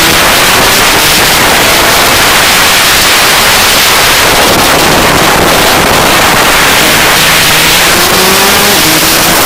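Rotax DD2 kart's two-stroke engine revving on track, heard faintly under loud wind rush on the microphone, its pitch rising and falling and climbing again near the end.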